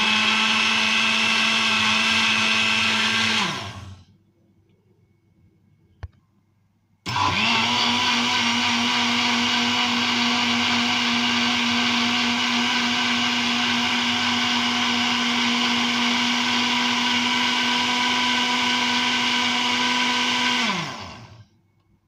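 Electric countertop blender with a glass jar blending yogurt, gram flour and water: a short run of about four seconds that winds down, then a click, then a longer run of about fourteen seconds that spins down near the end.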